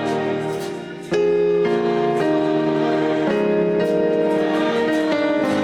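Keyboard playing slow sustained chords in a worship song, changing chord every second or so. It fades briefly and comes back in fuller about a second in.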